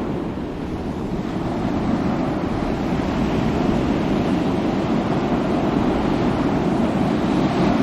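Ocean waves breaking and washing in a continuous surf, swelling and easing gently with no single sharp crash.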